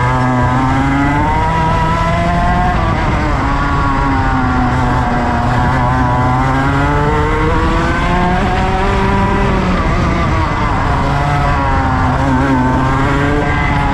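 Go-kart engine heard on board at racing speed, its pitch rising and falling again and again as the kart accelerates down the straights and slows for the corners.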